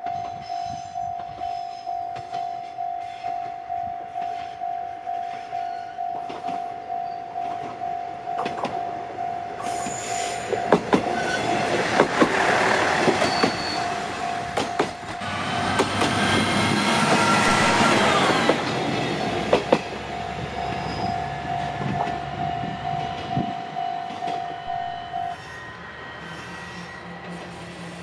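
Japanese level-crossing warning bell ringing about twice a second while a diesel railcar passes through the crossing, its engine and wheels loudest in the middle, with sharp clicks of wheels over rail joints. The warning bell stops a few seconds before the end, as the crossing clears.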